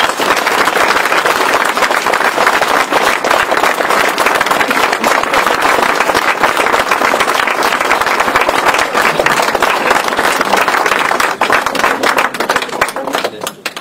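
Audience applauding: dense, sustained clapping that thins out near the end.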